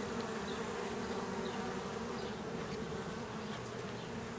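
A mass of honey bees buzzing steadily, a continuous hum of many wings from a package of bees being installed into a hive.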